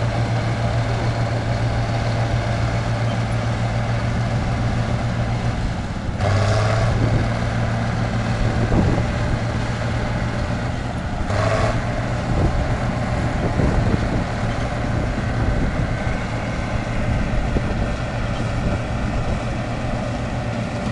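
Bizon Z056 combine harvester's diesel engine and threshing gear running steadily under load while cutting grain. Two brief louder rushes of noise come about six and eleven seconds in.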